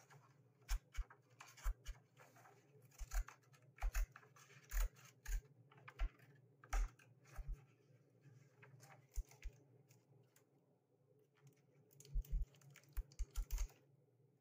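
Small cat-paw stationery scissors snipping paper in short, choppy cuts: irregular sharp snips in quick groups, a pause of a couple of seconds, then a fast run of snips near the end.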